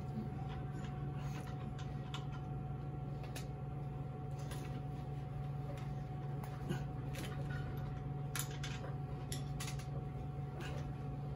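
Irregular light clicks and taps of metal parts being handled by hand at an e-bike's rear axle and chain while refitting the wheel, over a steady low hum.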